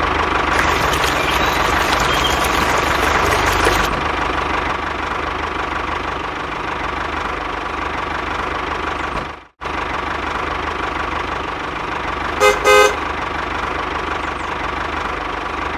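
A toy RC tractor runs with a steady motor whine and drive noise. The sound cuts out for a moment just past halfway. Near the end a horn gives two short toots.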